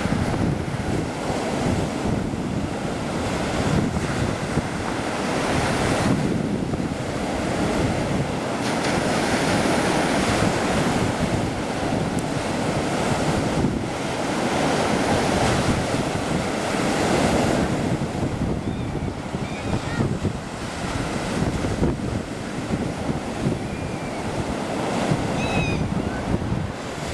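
Black Sea surf breaking and washing ashore in swells, with wind buffeting the microphone. A few faint seagull calls come through in the last third.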